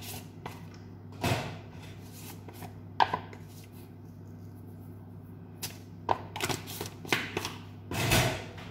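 Scattered clicks and light knocks of plastic spice containers being handled in a kitchen: a cap taken off and salt shaken over sliced potatoes in a glass bowl, over a steady low hum.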